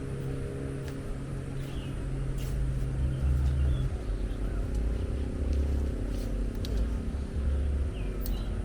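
Strong wind buffeting the microphone in uneven low gusts, over the steady hum of an engine that cuts off about four seconds in.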